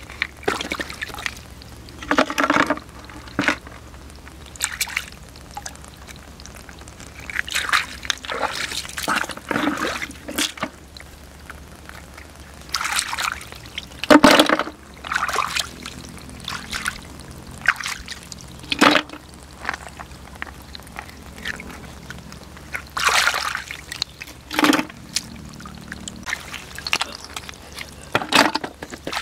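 Shallow muddy water splashing and sloshing as hands work through it, in short irregular bursts every second or two.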